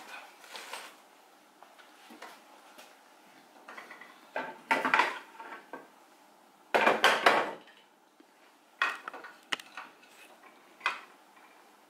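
Metal parts and tools being handled on a workbench while a benchtop band saw is assembled: scattered clinks and knocks, with two louder spells of rattling clatter around the middle.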